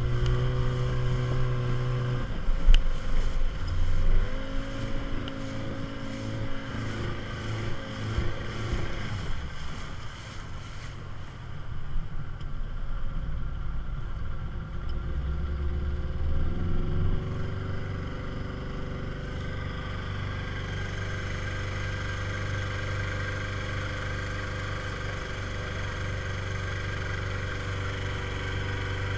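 Small Rhino speedboat's outboard motor running, its pitch shifting up and down with the throttle through the first half and then holding steady, over the splash and rush of water past the hull.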